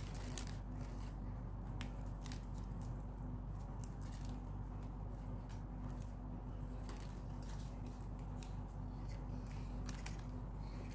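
Strands of plastic craft wire clicking and rustling against each other as they are pulled tight and knotted by hand, over a steady low hum.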